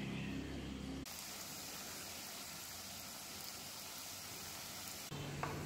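Strips of dough deep-frying in hot oil in a wok, a steady even sizzle. It starts abruptly about a second in and cuts off abruptly near the end.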